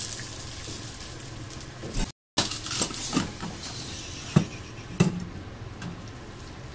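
Fading sizzle from the hot frying pan, then, after a break, a few sharp knocks and clinks of a stainless mesh strainer and kettle being handled. Near the end, hot water starts pouring from the kettle onto the seared pork belly in the strainer.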